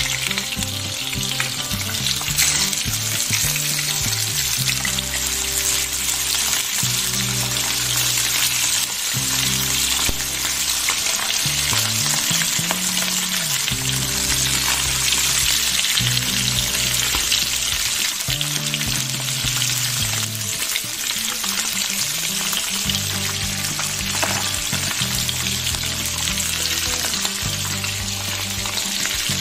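Masala-coated trout pieces sizzling steadily as they fry in hot oil in a frying pan. Background music with a low bass line plays underneath.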